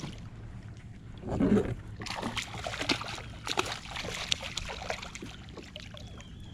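Water splashing with a run of rattling clicks and knocks, and a dull thump about a second and a half in, from a fish being handled at the water.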